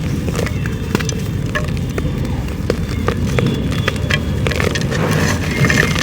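Dried clay being crumbled, giving scattered crisp crackles and small snaps over a steady low rumble.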